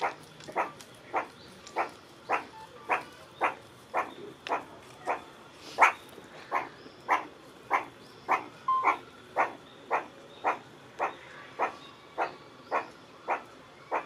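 Meerkat calling: short calls repeated at a steady pace, about two a second, with one louder call about six seconds in.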